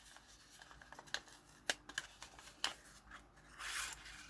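Small bags of model-kit parts being handled: a few light clicks and crinkles, then a short rustle of packaging near the end.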